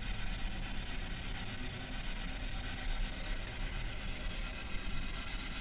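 Steady hiss with a low rumble underneath, unchanging and without distinct events.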